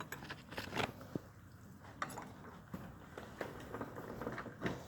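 A few light, scattered clicks and taps as a door latch is handled and held in place against the door.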